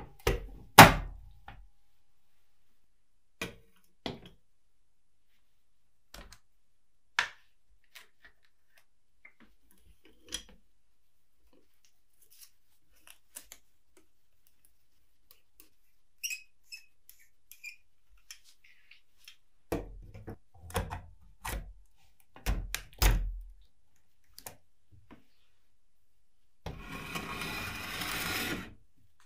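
Metal parts of a restored F-5 filmstrip projector being handled and fitted together on a wooden workbench: scattered knocks and clicks, the loudest a knock just after the start, a cluster of them about twenty seconds in, and a steady rubbing noise for about two seconds near the end.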